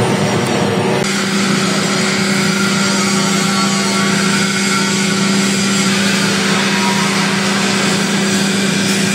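Milling machine running with a steady mechanical hum, its slotting head cutting internal teeth in a brass sleeve. The sound changes character about a second in, then stays steady.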